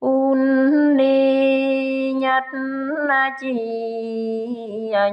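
Traditional Mường folk singing: a single voice, with no instruments, holding long drawn-out vowel notes in a few phrases, bending slightly in pitch between them.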